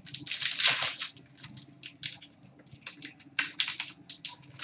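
A hockey card pack's wrapper crinkling and tearing as it is opened by hand, in a run of short crackles with a longer one in the first second and another burst a little past three seconds in.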